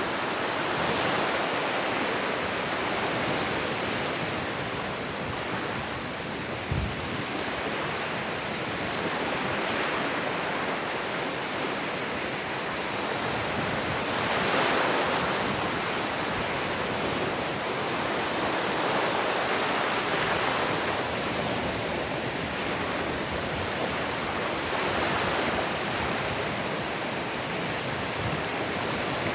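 Ocean surf washing onto a beach: a steady rush of water that swells every few seconds as waves break. A brief low thump about seven seconds in.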